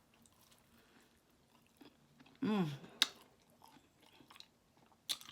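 Close-up mouth sounds of someone chewing and biting fried chicken: soft wet clicks and a few sharper smacks, with a short falling hum about two and a half seconds in.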